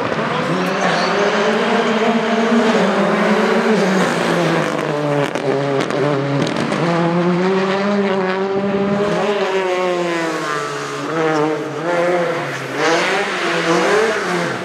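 Rally car engines revving hard as cars take a bend one after another, the pitch rising and dropping repeatedly with throttle and gear changes.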